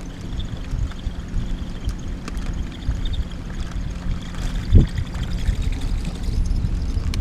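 Wind buffeting the microphone in an open boat, over a steady low hum and a faint high whine. There is a single thump a little under five seconds in.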